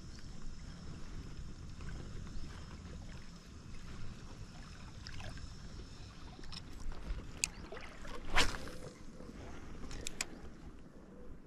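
Steady low rumble of moving river water and wind, with a few light clicks and one sharper, louder hit about eight seconds in.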